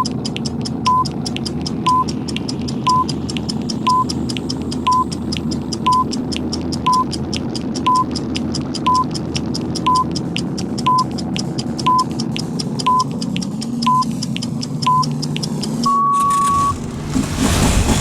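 Countdown timer sound effects: a short electronic beep once a second over fast clock ticking and a steady engine drone. About sixteen seconds in a longer beep marks the end of the count, and a loud rumbling boom follows.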